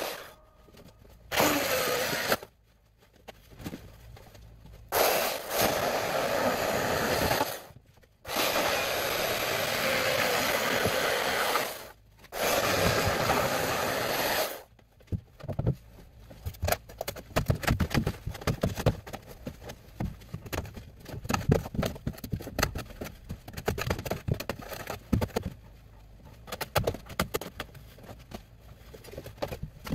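Corded electric saw cutting through the foam buoyancy blocks of a lifeboat hull, run in bursts of two to four seconds that start and stop abruptly. Through the second half, irregular scraping, crackling and knocking of foam being pried and torn away.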